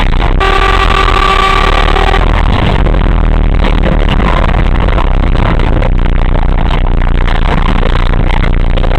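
A vehicle horn sounds one steady tone for about two seconds, starting half a second in, over loud, distorted vehicle noise.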